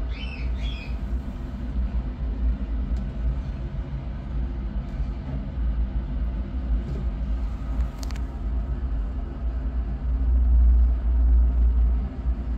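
A steady low rumble, swelling for a couple of seconds near the end, with a few short, high kitten mews in the first second.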